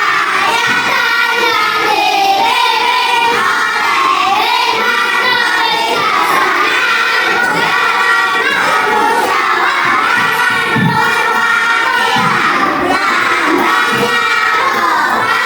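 Many children's voices shouting and singing at once, a steady loud din.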